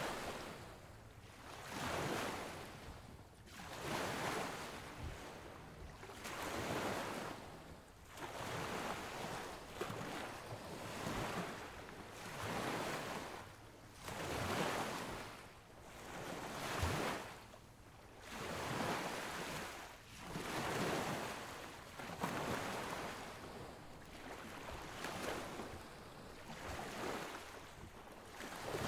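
Surf washing in, a rushing sound that swells and fades about every two seconds.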